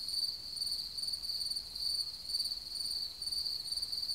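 Crickets chirping: a steady high trill that pulses about twice a second.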